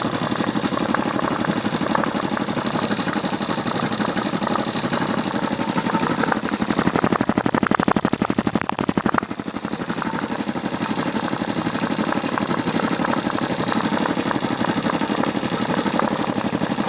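Homemade air compressor's piston pump and motor running steadily with a fast, even pulsing, pumping up a converted propane tank nearing its 130 psi cut-off. Louder for about three seconds in the middle, then steady again.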